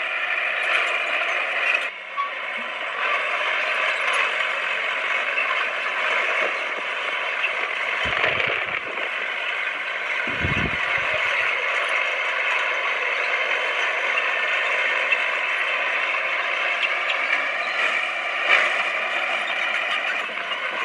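Komatsu D20P crawler bulldozer working, its steel tracks and running gear giving a dense, steady metallic clatter. Two short deep thumps come near the middle.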